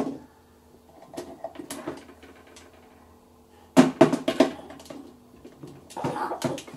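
Scattered taps and knocks of hands on a speech-generating communication aid, a few faint ones first, then a loud cluster just before four seconds in and another group around six seconds.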